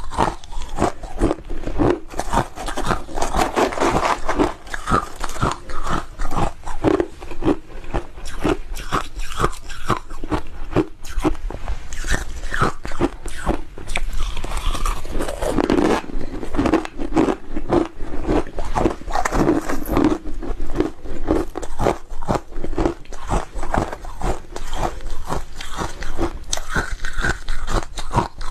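Hard ice being bitten and chewed right at a clip-on microphone: dense, rapid crunching that goes on with only brief pauses.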